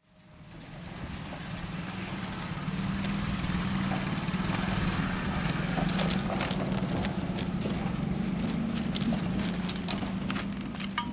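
A steady low engine hum that swells up over the first couple of seconds, with scattered sharp clicks and rattles over it.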